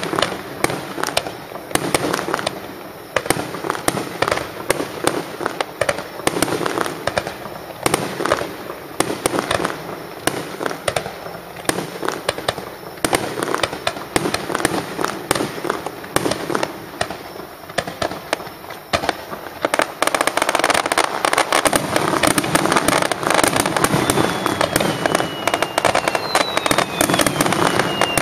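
Fireworks display: a quick, continuous run of aerial shell bursts and crackling, getting denser and louder about twenty seconds in, with falling whistles near the end.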